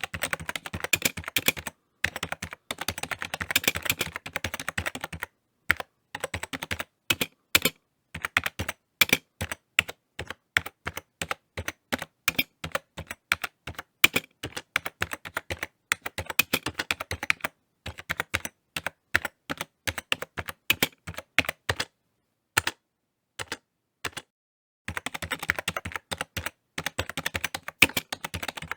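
Typing on a computer keyboard: quick runs of key clicks, broken by short pauses of about half a second to a second.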